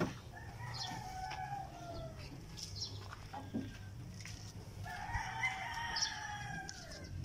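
A rooster crowing faintly twice: two long calls, each falling in pitch at the end, about four seconds apart, over a low steady hum.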